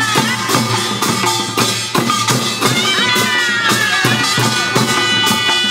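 Korean pungmul farmers' band music: drums beat a steady rhythm, about two strokes a second, under a wavering, gliding melody line.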